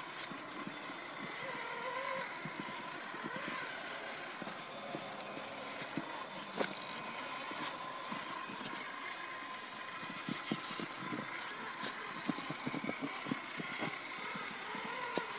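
Traxxas Summit electric RC truck's motor and drivetrain whining steadily as it crawls over leaf litter and rocks. Scattered crunches and clicks from the tyres and chassis come thicker in the last few seconds.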